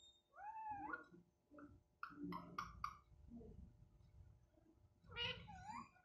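Indian ringneck parrot vocalizing: a gliding call that rises and falls just after the start, a quick run of short sharp calls about two seconds in, and another gliding call near the end.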